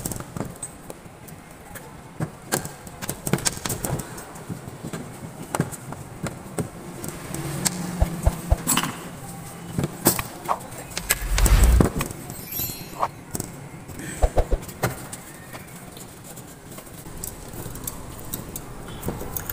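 Scattered metallic clicks and scrapes of a screwdriver and pliers working the rusted metal terminal strips and diode clips loose from a solar panel's plastic junction box, with a louder knock a little past the middle.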